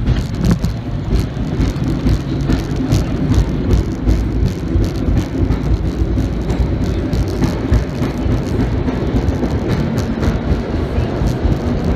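Vintage R1/9 subway train running through a tunnel, heard from its front car: a steady low rumble of wheels and motors on the track, with irregular clicks and clacks from the wheels.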